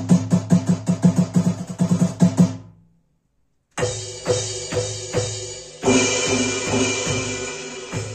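NUX DM-7X electronic drum kit being played: a fast, even run of low drum hits, about five a second, fades out, and after a short silence a beat starts with drum strokes under a cymbal wash.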